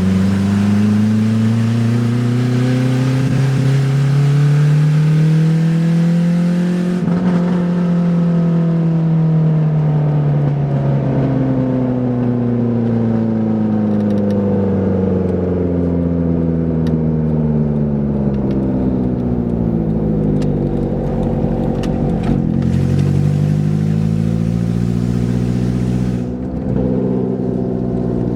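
1993 Saturn SW2's 1.9-litre four-cylinder engine running with no exhaust manifold, exhaust coming straight out of the open head ports. The revs climb over the first several seconds, sink slowly back, then climb again near the end.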